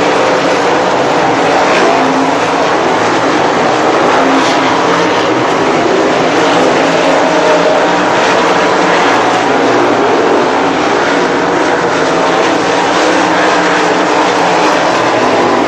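A field of 360 winged sprint cars racing on a dirt oval, their V8 engines running together at speed as a loud, continuous wall of engine noise with no let-up.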